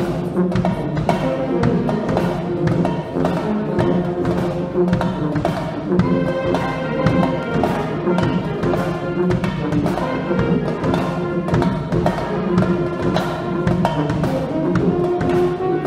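School brass band with sousaphones, trumpets and drums playing a piece, sustained brass notes over a steady drum beat.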